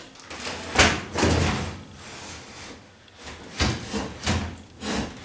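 Built-in oven being pulled out of its kitchen cabinet niche, its casing sliding and knocking against the cabinet. There is a longer scrape about a second in, then several short knocks and scrapes in the second half.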